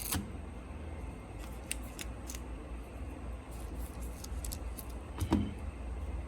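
Scattered light clicks and taps of small tools and phone parts being handled, with one louder knock about five seconds in, over a steady low hum.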